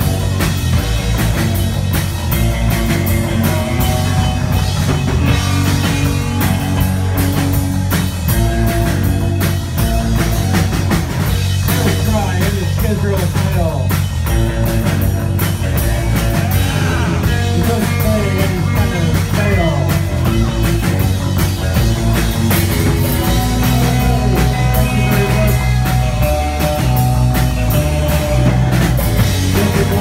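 Live rock band playing an instrumental stretch on electric guitars, bass guitar and drum kit, loud and steady, with sliding guitar notes about halfway through.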